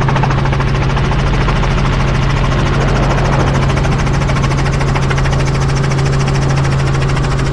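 Helicopter engine and rotor running steadily, a constant drone with a strong low hum and a fast, even rotor beat, during the slow approach to land at the helipad.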